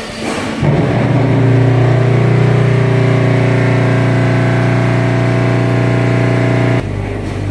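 Concrete-block production line's pallet elevator machinery running with a steady hum. It comes on about half a second in and stops suddenly near the end.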